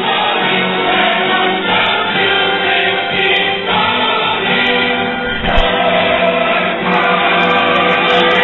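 Background music: a song with several voices singing together over the band.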